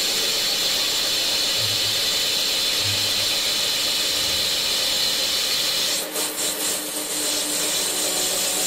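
Metal lathe turning a cylindrical workpiece, the cutting tool making a steady high-pitched cutting noise over the hum of the lathe's motor and gearing. The sound dips a few times about six seconds in.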